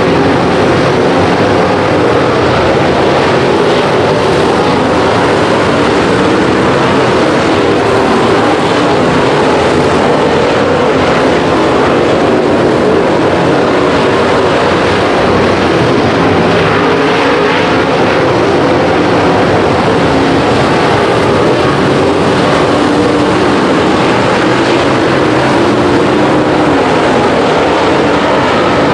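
A pack of race cars running at speed: engines held hard in a loud, continuous din whose pitch wavers as cars pass and lift.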